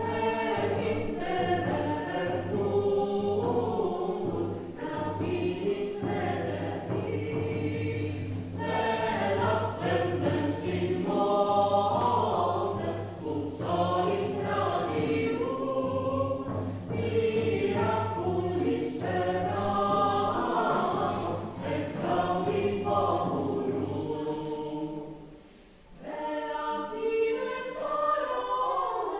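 A choir singing sacred music over low sustained pipe-organ notes. The organ stops about 24 seconds in, the sound drops briefly, and the choir carries on unaccompanied.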